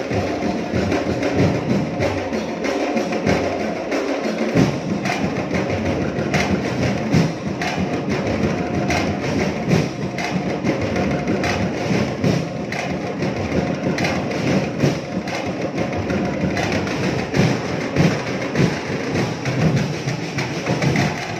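Drum-and-percussion ensemble of Dinagyang tribal drumming playing a fast, driving rhythm, with drums and sharp wood-block-like clacks beating closely together.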